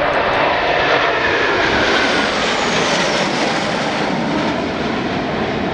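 A formation of T-50 Golden Eagle jet trainers flying past, their General Electric F404 turbofans (one per aircraft) giving a loud, steady jet roar. A whine falls in pitch about two seconds in as the jets pass.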